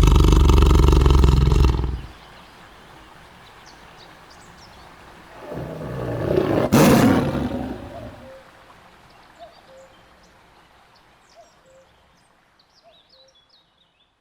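Tiger roaring: one long roar that stops about two seconds in, then a second roar that swells and fades around the middle. Faint bird chirps follow near the end.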